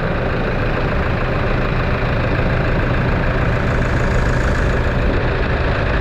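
Toyota Hilux engine idling steadily with a new fan belt tensioner pulley and belt fitted.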